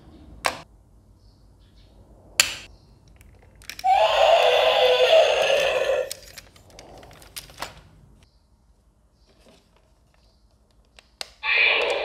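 Sharp plastic clicks and knocks from a plastic toy dinosaur and its battery pack being handled, twice early on, with a loud, noisy sound lasting about two seconds about four seconds in and another starting just before the end.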